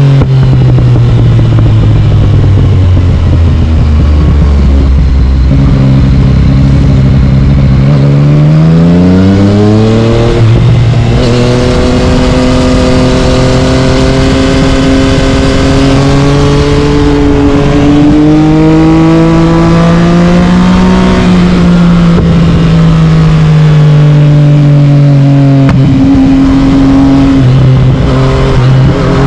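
Yamaha MT-09's three-cylinder engine through an Akrapovic carbon exhaust, on the move: the revs fall away for the first several seconds, then climb sharply about eight seconds in. The engine then holds and slowly builds before easing off again, with a sudden change in pitch near the end.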